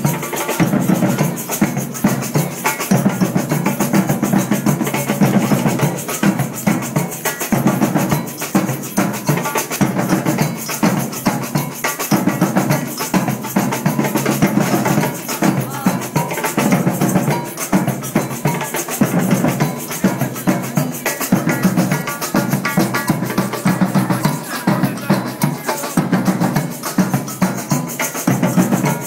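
Street drum band playing a steady, dense rhythm on large metal-shelled surdo bass drums and snare drums, the deep bass beats repeating evenly under the crackle of the snares.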